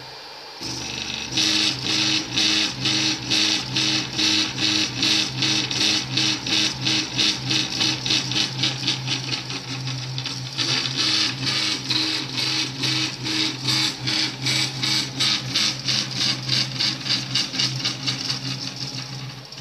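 Anet E16 3D printer's stepper motors whirring through quick back-and-forth print moves, pulsing about three times a second over a steady hum. It picks up about a second in after a brief lull.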